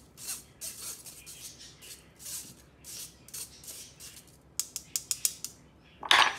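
A metal spoon scraping cooked bulgur out of a stainless wire-mesh sieve in repeated short strokes, followed by a quick run of sharp taps. Near the end comes a loud clatter as the spoon is put down on the wooden cutting board.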